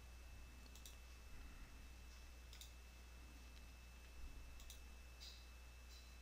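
Near silence with a few faint, sharp computer mouse clicks spaced a second or two apart, over a low electrical hum.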